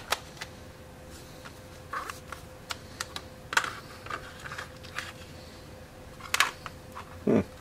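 Scattered, irregular light plastic clicks and taps as tubes of precision screwdriver bits are handled and fitted into plastic storage cases.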